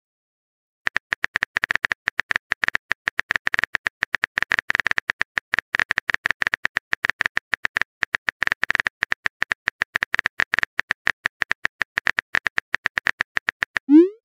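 Keyboard typing sound effect from a texting-story app: rapid, irregular keystroke clicks starting about a second in and running on, with the rising pop of a message being sent at the very end.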